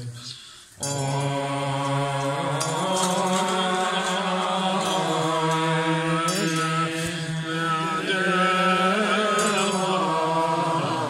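Vajrayana Buddhist liturgical chanting by monastics, a low steady recitation with slow melodic rises and falls. It breaks off briefly about half a second in, then resumes.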